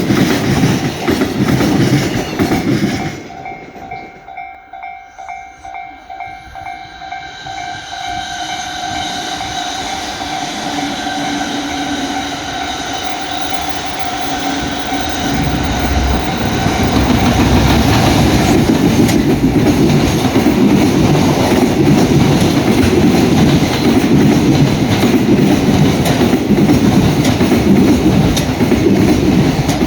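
JR Freight container train passing on the line. After a sudden drop about three seconds in, a steady hum of several tones grows as the train approaches. From a little past halfway the wagons' wheels clatter loudly and evenly over the rail joints as they roll by.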